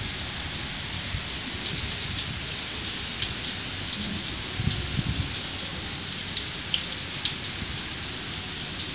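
Heavy rain pouring steadily, with sharp close-by drop hits spattering on the wet balcony now and then.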